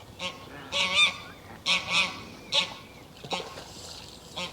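Goose honking repeatedly, about six short calls spread across a few seconds.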